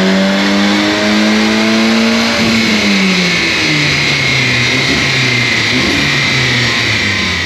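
Audi TT Mk2's turbocharged TFSI four-cylinder engine under load on a chassis dyno during a remap run. The revs climb, drop about two and a half seconds in, then hold lower and steady while a high whine rises near the end.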